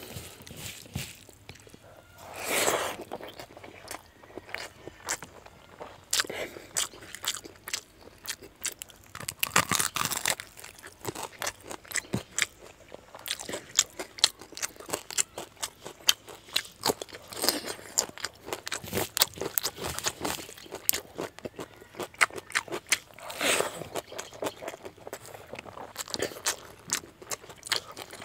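Close-miked eating: fingers mixing rice with fish head curry on a banana leaf, and mouthfuls chewed and crunched, with many small wet clicks and smacks and a few louder bursts of chewing.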